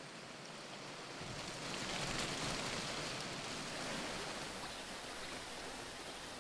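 Steady rushing of water from a waterfall and a shallow stream running over rocks, swelling in about a second or two in.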